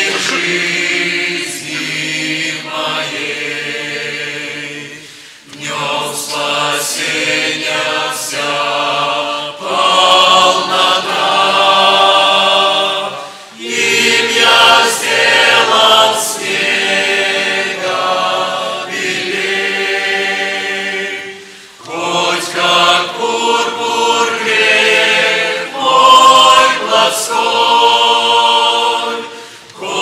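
A church choir singing a hymn in Russian, in long phrases of about eight seconds, each separated by a brief pause for breath.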